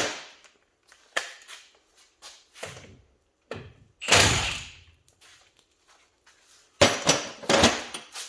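Hand tools clanking against the metal brake and suspension parts of a truck's front wheel hub: a run of separate knocks, a longer rattle about four seconds in, and a quick cluster of clanks near the end.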